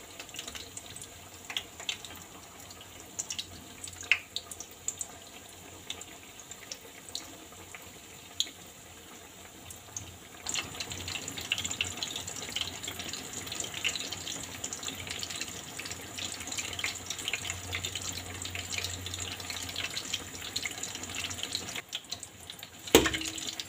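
Zucchini and carrot fritters frying in hot oil in a wok: a steady sizzling crackle with scattered pops, growing louder about ten seconds in as more fritters go into the oil. Just before the end a metal skimmer knocks against the pan.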